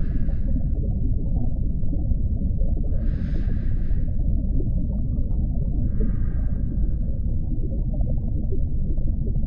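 Deep-sea diving ambience: a steady low underwater rumble under three hissing breaths through a scuba regulator, about three seconds apart.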